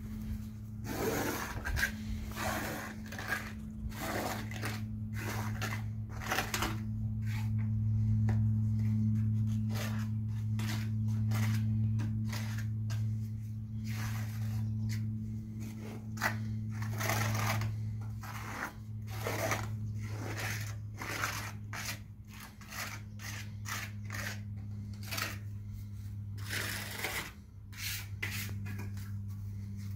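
Steel trowel scraping and smoothing Mapelastic cementitious waterproofing mortar over mesh, in many short, irregular strokes. A steady low hum runs underneath.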